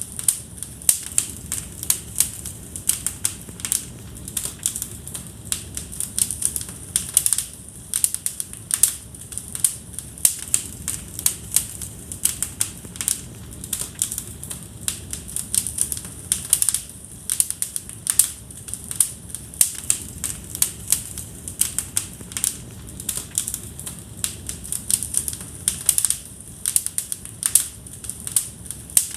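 Fire crackling in a fireplace: dense, irregular sharp pops and snaps, several a second, over a steady low rumble of the flames.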